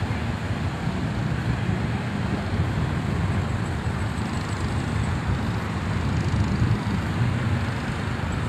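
Steady wind rumbling on the phone's microphone over the wash of small waves breaking on the shore.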